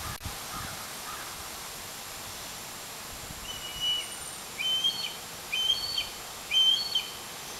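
A bird calls four times, each call a short, high, flat note with overtones, about a second apart and getting louder, over a steady background hiss.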